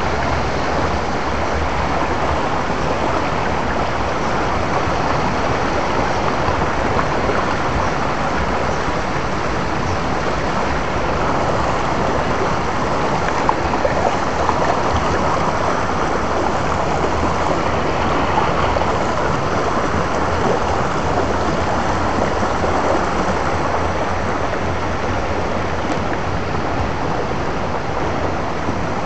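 Shallow rocky stream rushing and splashing around mossy boulders, a steady wash of water close to the microphone.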